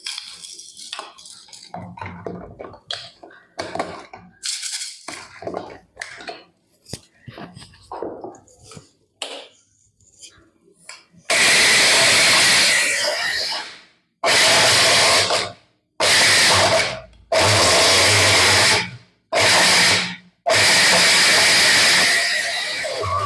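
Whole roasted spices rattle and click as they are poured into a Borosil mixer-grinder jar and the jar is fitted on. About eleven seconds in, the electric mixer grinder runs in six short pulses with brief stops between them, grinding the whole spices and salt to a fine powder.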